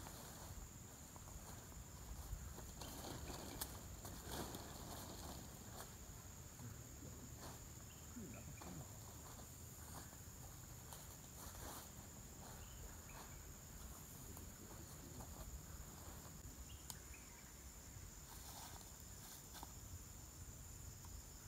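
A faint, steady, high-pitched insect chorus, with scattered soft rustles and clicks from people moving over dry leaves and handling a tarp.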